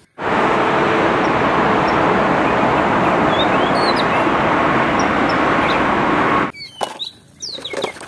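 Twin-engine jet airliner taking off: a loud, steady jet engine noise that starts suddenly and cuts off about six and a half seconds in. Faint bird chirps are heard over it and after it stops.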